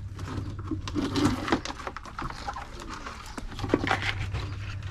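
Crabs and giant freshwater prawns being handled and tipped out of a plastic basin onto concrete: scattered clicks, taps and rustling.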